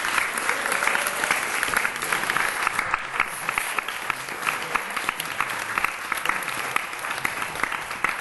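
Audience applauding: a roomful of steady hand clapping that eases off slightly toward the end.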